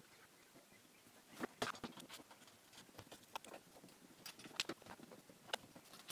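Faint, irregular clicks and light knocks of hands handling the opened Sansui 881 receiver and its leads on a workbench, with a cluster of sharper clicks about one and a half seconds in and again past the four-second mark.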